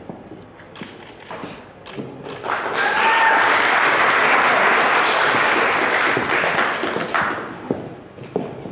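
Audience applause: a few scattered claps, then a burst of clapping that swells about two and a half seconds in, holds, and fades out about seven seconds in.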